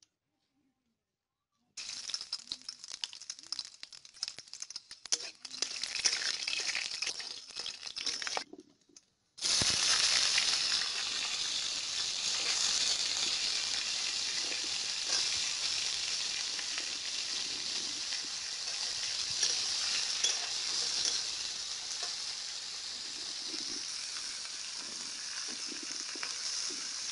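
Irregular crackling from about two seconds in. Then, after a short break, a loud, steady sizzle starts suddenly as chopped dudh kochu (taro stem) pieces go into hot oil in a kadai, easing slightly near the end.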